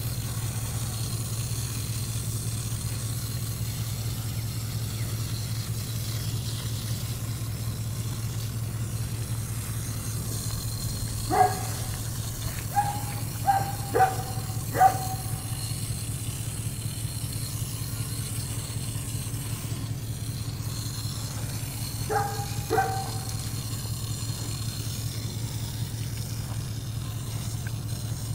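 Steady low motor hum throughout, engine-like. Over it, a few short high whimpers from the dog being hosed down: a cluster of five about halfway through and two more later.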